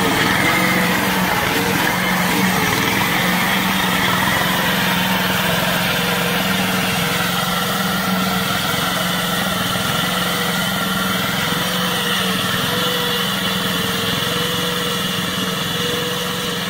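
Small engine of a homemade tracked tank running at a steady speed as the tank drives across grass, its note holding even and fading slightly near the end as it moves away.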